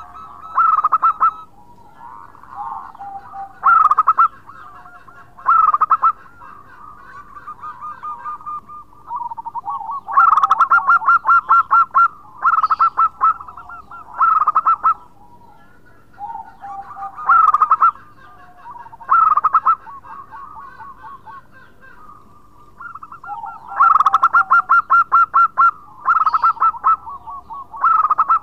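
Zebra dove (perkutut) cooing. Loud bursts of rapid staccato notes come every couple of seconds, with softer rolling trills between them.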